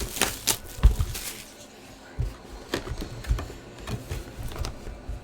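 A run of irregular sharp clicks and taps, several loud ones in the first second, then softer, scattered ones.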